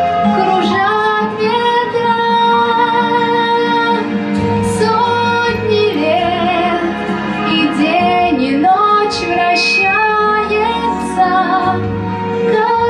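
A girl's solo voice singing a slow, held melody with vibrato over instrumental accompaniment.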